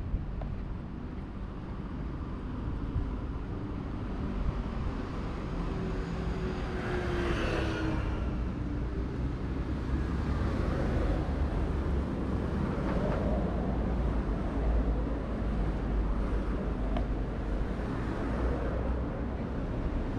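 Road traffic passing: a steady rumble of engines and tyres, with one vehicle going by close about seven seconds in, its pitch falling as it passes, and more vehicles swelling past after it.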